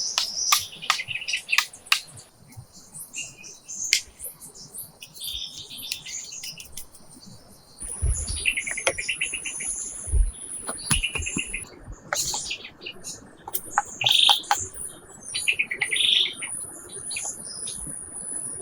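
Birds chirping in repeated short call phrases, with scattered sharp clicks and knocks and two low thumps about eight and ten seconds in. A steady high-pitched whine runs through the second half.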